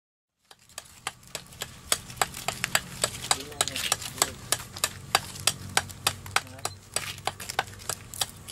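A fast run of sharp clicking taps of hard objects, about three to four a second, over a faint low hum.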